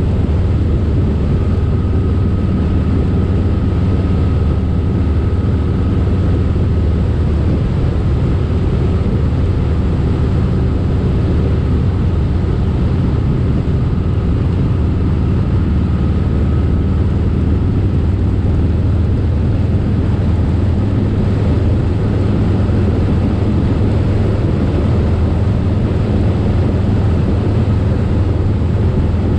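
2019 Harley-Davidson Softail Slim's V-twin engine running steadily at cruising speed, mixed with wind and road rush.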